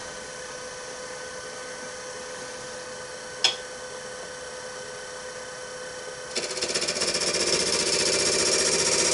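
Wood lathe running with a steady motor whine and one sharp click; a little after six seconds a turning tool bites into the spinning wood, a louder rapid rattling cut that carries on.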